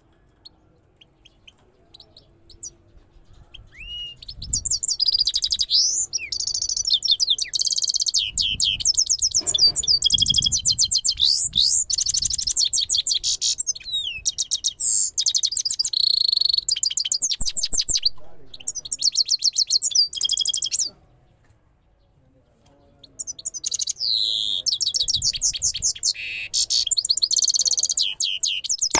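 Caged goldfinch × canary hybrid singing: a few short chirps, then a long run of fast, high-pitched twittering and trills. It breaks off for about two seconds, then takes up the song again.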